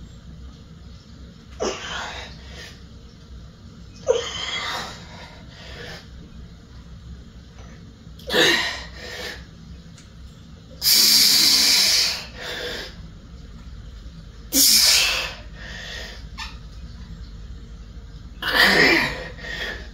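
A man's forceful, effortful exhalations during a set of barbell curls, about six hard breaths spaced a few seconds apart. The one about halfway through is the longest and loudest.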